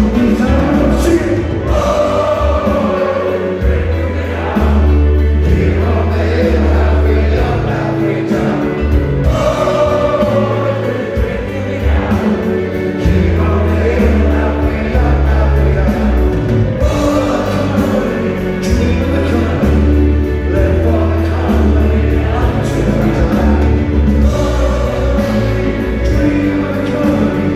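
Live rock band playing a song with sung vocals, over sustained bass notes that change every few seconds.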